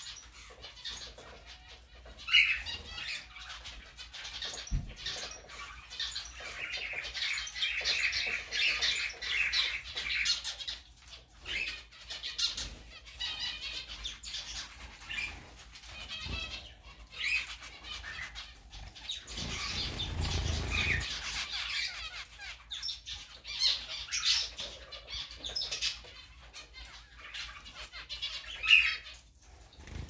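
Zebra finches calling and chattering almost without pause, with a few sharp, louder single calls near the start and near the end. A brief low rustle comes about two-thirds of the way through.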